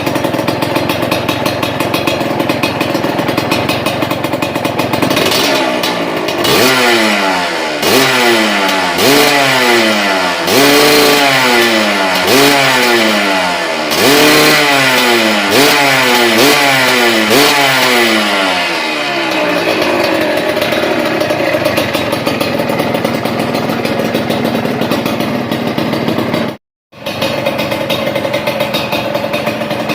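Suzuki TS125's two-stroke single-cylinder engine through a Triton RS-5 aftermarket exhaust, idling, then revved in a run of quick throttle blips, each rising and falling in pitch, for about twelve seconds before settling back to idle. The sound cuts out for a moment near the end.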